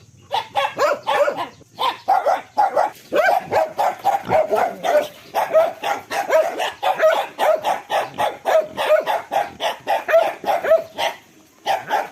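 A dog barking in a fast, steady string of short, fairly high-pitched barks, about three a second. The barking stops for about a second near the end, then starts again.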